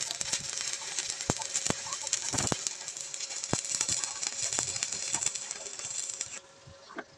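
Electric arc welding a steel corner joint: a steady crackling sizzle with sharp pops of spatter. It cuts off suddenly near the end as the arc stops.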